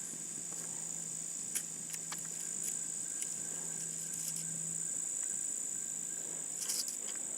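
Steady high-pitched trilling of insects, with a few faint clicks and taps.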